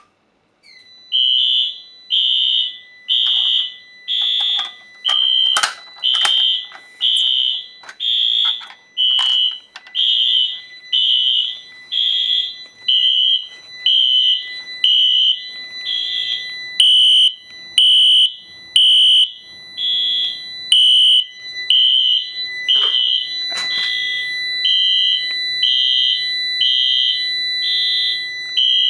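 Fire alarm horns on a Unimode 9050UD addressable fire alarm system sounding in alarm, set off by a manual pull station: loud, high-pitched blasts pulsing at about one a second, starting about a second in, over a steady high tone.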